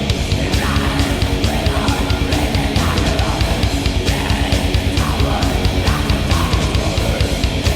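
Black metal playing: distorted electric guitars over fast, driving drums with rapid, evenly spaced strokes.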